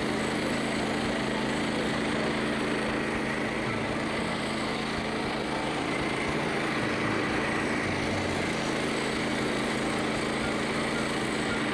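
Frontier OS27 portable bandsaw mill running steadily under load, its small gasoline engine humming as the band blade cuts through a red oak log.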